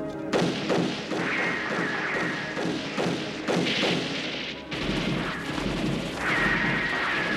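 Movie gunfight sound effects: a string of sharp bangs and thuds from pistol shots and impacts. A thin, steady high tone runs under parts of it.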